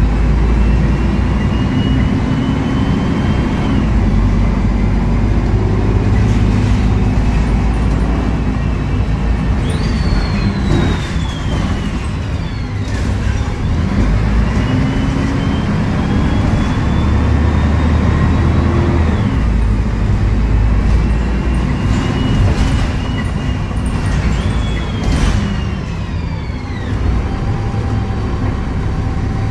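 Mercedes-Benz O500U city bus heard from inside the passenger cabin: its OM906LA six-cylinder diesel runs with a steady low rumble. A drivetrain whine climbs slowly as the bus gathers speed and drops away as it slows, about three times.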